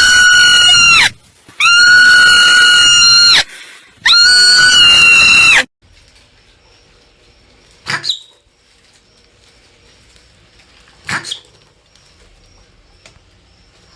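Marmot screaming: three long, loud, high-pitched calls in quick succession, each held steady for under two seconds. These are followed later by two short, faint chirps.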